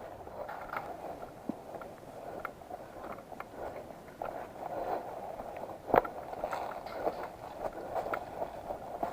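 Footsteps and rustling of a person moving through brush, with scattered small clicks and one sharp crack about six seconds in.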